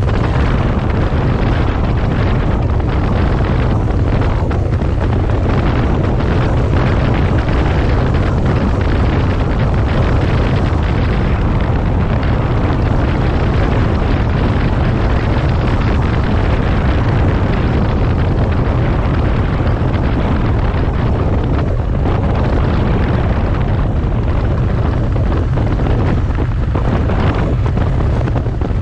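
Triumph 900cc motorcycle running at riding speed, its engine mixed with a steady, loud rush of wind on the microphone.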